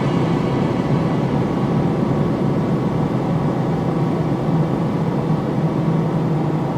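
Dark, eerie horror ambience: a steady, dense low drone with layered sustained tones above it. The low hum swells a little in the second half.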